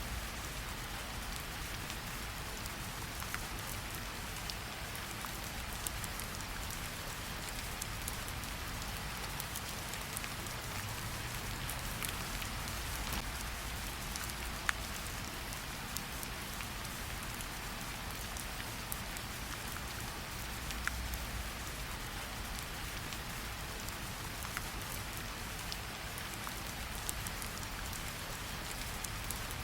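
Steady rain falling, an even hiss with scattered sharp drop ticks and a low rumble underneath.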